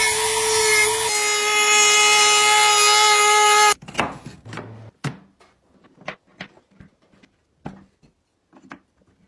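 Handheld rotary tool running with its bit grinding into wood, a loud steady high whine that cuts off suddenly a little under four seconds in. After it, scattered light clicks and taps of thin wooden pieces being fitted together by hand.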